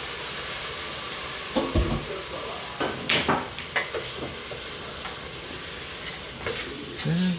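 Pool shot on a small sinuca table: a sharp click of the cue striking the cue ball about a second and a half in, then clacks of balls colliding and hitting the cushions, with a few fainter knocks later. A steady hiss of background noise runs underneath.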